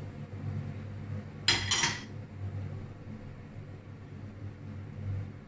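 Saucepan set down on a gas-stove grate: two quick metal clanks close together about a second and a half in, over a low steady background hum.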